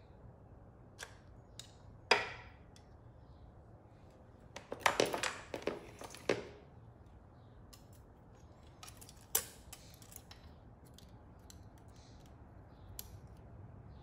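Metal hand tools clinking during a motorcycle valve tappet adjustment. A sharp ringing clink comes about two seconds in, a clatter of several clinks follows around five to six seconds, another clink comes after nine seconds, and there are light ticks in between.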